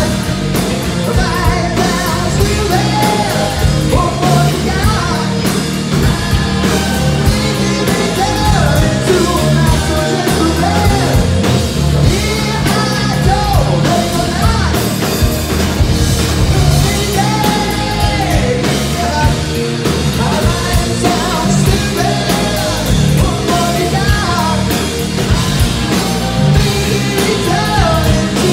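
Rock band playing live: a lead vocal over electric guitar, electric bass and drum kit.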